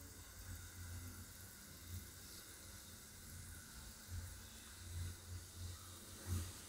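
Chocolate syrup of cocoa, sugar and butter in water simmering on a low flame, a faint bubbling sizzle over a low steady hum. A silicone spatula touches the pan briefly near the end.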